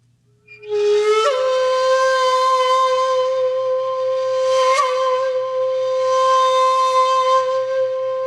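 A wind instrument playing one long held note, sliding up into pitch about a second in and then holding steady.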